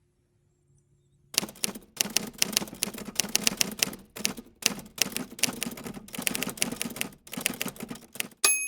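Manual typewriter being typed on in quick runs of key strokes with short pauses between them, ending in a single ring of the carriage bell.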